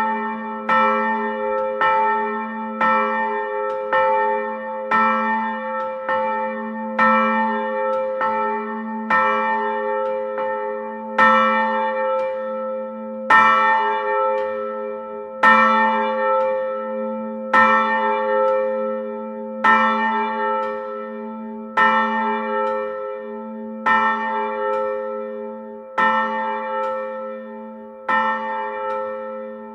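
Church bell tolling steadily, struck about once a second, every strike's ring overlapping the next so a deep hum carries on between strikes; some strikes land harder than others.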